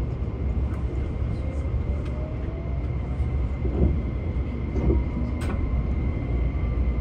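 JR West 273 series electric express train pulling away, a low running rumble with a motor whine that rises slowly in pitch as it gathers speed.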